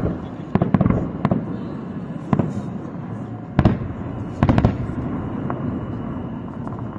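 Aerial firework shells bursting in a display: a string of sharp bangs, several in quick succession about a second in and again in the middle, over a low rumble of more distant bursts.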